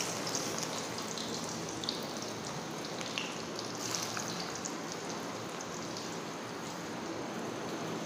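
Sliced bitter gourd deep-frying in hot oil: a steady sizzle with small pops and crackles scattered through it as fresh pieces are dropped in.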